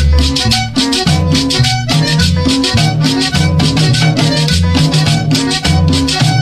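Sonidero dance music with a steady beat: a repeating bass line, held melody notes and busy high percussion.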